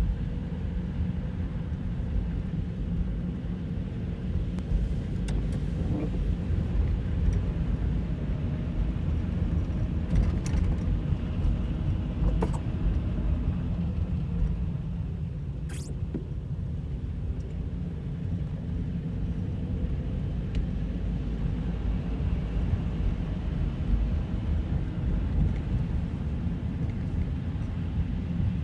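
Snowstorm wind buffeting the microphone: a steady low rumble that rises and falls, with a few faint clicks.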